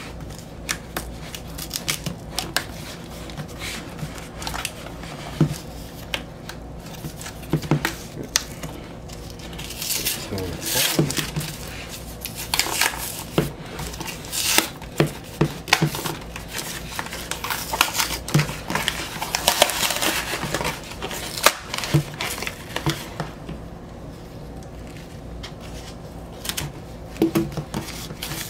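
Cardboard record mailer being worked open by hand: the heavy packing tape is scraped, picked and pulled, with taps and clicks on the box throughout and louder scraping and tearing from about ten seconds in until a little after twenty seconds.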